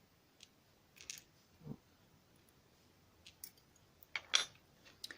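Small metal lock parts and tools clicking and tapping against each other as a Eurocylinder is taken apart by hand: scattered light clicks, the loudest pair a little past four seconds in.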